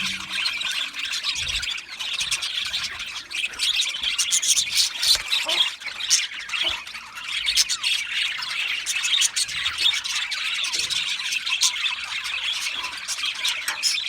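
A flock of budgerigars chirping, chattering and squawking together in a dense, continuous overlapping chorus, with frequent sharp short calls.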